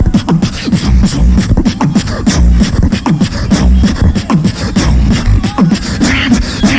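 A beatboxer performing into a microphone: rapid, rhythmic snare and hi-hat clicks over heavy, deep bass kicks that land in pairs, with pitched vocal bass lines woven between them.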